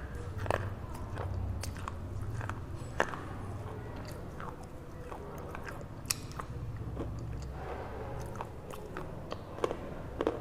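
Dry crunching of a red slate bar bitten and chewed with slate-pencil paste: sharp, irregular cracks, several close together, the loudest about 3 s and 6 s in and a cluster near the end, over a low steady hum.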